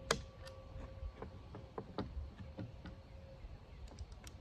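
Scattered small metallic clicks and taps of Swiss M1911 rifle parts and a screwdriver being fitted during reassembly, with one sharper click just after the start and a quick cluster near the end.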